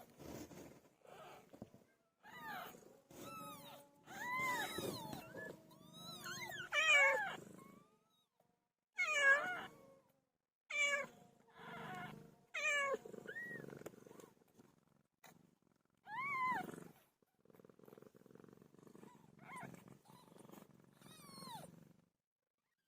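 Newborn kittens mewing in many short calls that rise and fall in pitch, some overlapping, with a cat purring beneath; the purring is heard alone near the end.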